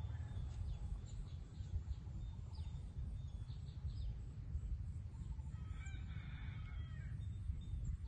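A rooster crowing once, a call of about a second and a half, over a few short high bird chirps and a steady low rumble.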